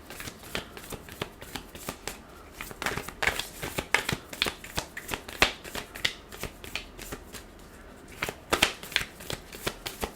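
An oracle card deck being shuffled by hand: a run of quick, papery card flicks and taps in irregular clusters, busiest in the middle and again briefly near the end.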